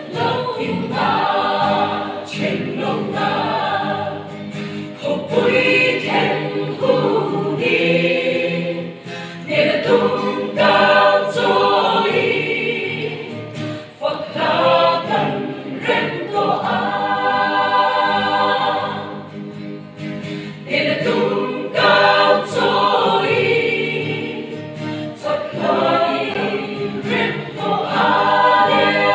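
Mixed choir of women and men singing in parts, in phrases that swell and ease off, with brief dips between phrases.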